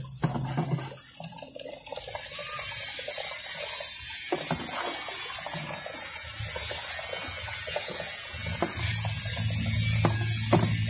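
Water poured from a plastic pitcher over a dog in a basin, splashing steadily, with scratchy rubbing and scattered clicks as the wet dog is handled. A low hum comes in near the end.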